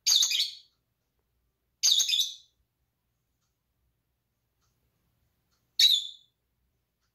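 Young rosy-faced lovebird giving three short, high-pitched chirps: one at the start, one about two seconds in, and one about six seconds in.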